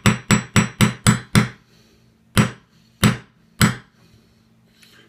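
Small hammer tapping a punch to drive a new roll pin into an AR-15 gas block, metal on metal. It gives six quick, even taps, then a pause and three slower taps.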